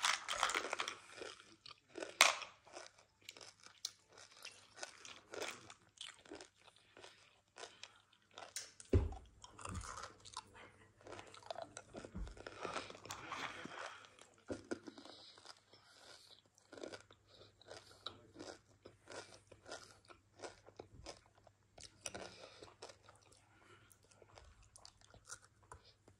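M&M's being crunched and chewed fast, mouthful after mouthful: a dense run of short, sharp crunches of the candy shells, with a few louder ones.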